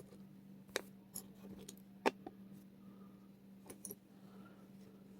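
Pokémon trading cards being handled and flipped through: a few light clicks and taps, the sharpest about two seconds in, over a faint steady hum.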